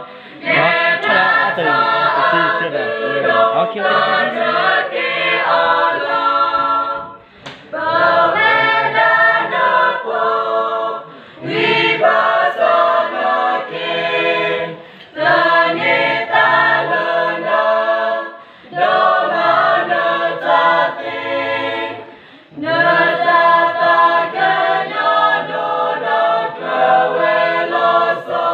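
Youth choir of girls and boys singing unaccompanied in unison, the song moving in phrases of a few seconds with short breaks for breath between them.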